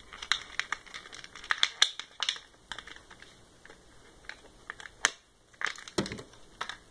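Clear plastic toy packaging crinkling and crackling as it is handled and opened by hand: irregular crackles with a few louder snaps.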